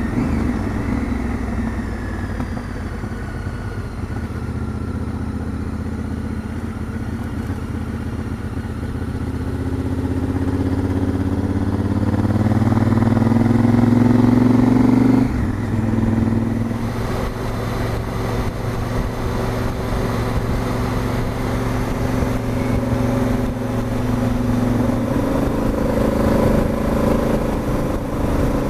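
Honda Africa Twin parallel-twin motorcycle engine running on the road. Its pitch climbs steadily for several seconds as it accelerates and drops abruptly about halfway through. It then runs steadily and climbs a little again near the end.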